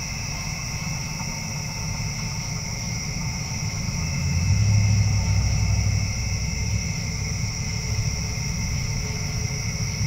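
Steady, high trilling chorus of night-singing insects, with a low rumble underneath that swells about four to six seconds in, then eases off.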